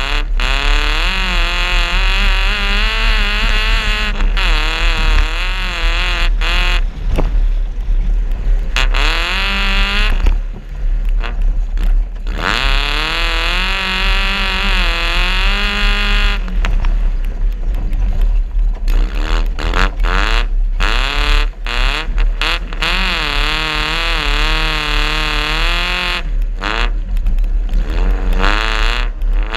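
Suzuki Vitara off-road car's engine revving hard, its pitch climbing and falling again and again as the throttle is worked, with brief lifts off the throttle.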